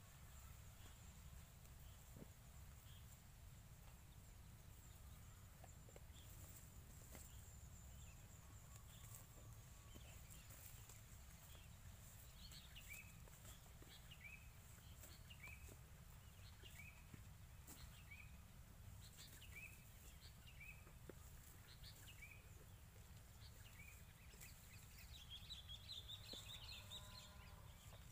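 Near-silent open field with a low rumble, and a faint bird chirping short descending notes about once a second. Near the end comes a brief, somewhat louder call.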